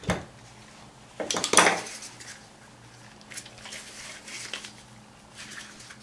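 Metal clinks and scrapes of a small screwdriver against a brake caliper as a rubber seal is pressed into place around the piston bore. A sharp knock at the start, the loudest cluster of clinks about a second and a half in, then a few light ticks.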